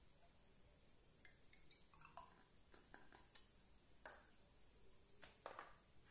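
Near silence with a few faint clicks and taps of plastic labware being handled and set down on a table mat, ending with a test tube being set into a plastic test-tube stand.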